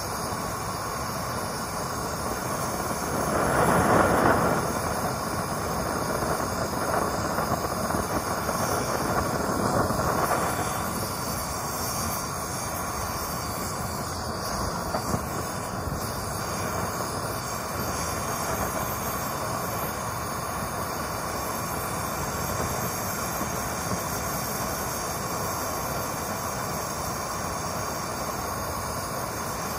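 Handheld gas torch burning steadily, its flame blowing into a small can-forge: a constant rushing hiss that swells louder briefly about four seconds in.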